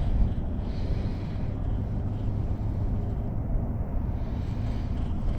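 Low, steady rumble of wind buffeting the microphone outdoors on open water, with no distinct events.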